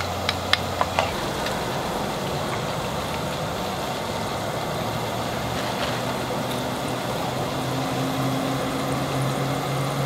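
Fries deep-frying in hot oil, a steady sizzle, with a few light clicks in the first second. A low steady hum joins about halfway through.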